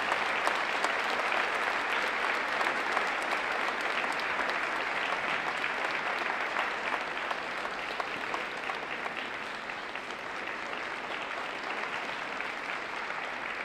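Arena audience applauding steadily, the clapping slowly dying down.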